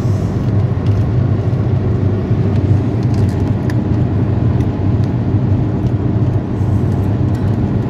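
Steady road and engine rumble of a moving car, heard from inside the cabin.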